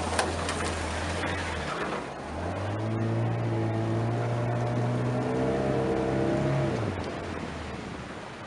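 Small boat's outboard motor running, revving up about two seconds in, holding the higher speed, then easing back down near the end. A sharp snap sounds right at the start.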